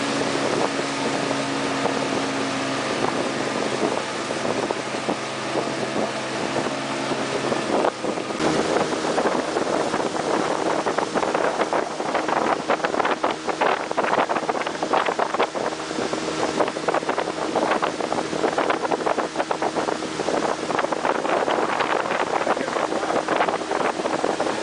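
Motorboat engine running steadily on the river, its note changing about eight seconds in, with dense rushing and crackling wind and water noise over it from then on.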